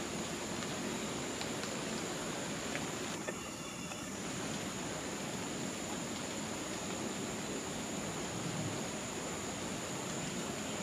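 Steady low rushing and rumbling of open-air rainforest ambience as a thunderstorm approaches, with a thin, constant high tone over it.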